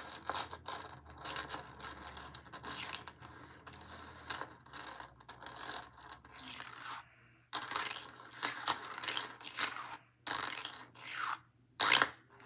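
Plastic fidget toy being pushed and twisted in the hands, giving a crunchy, scraping rattle in quick irregular strokes, with a couple of short pauses.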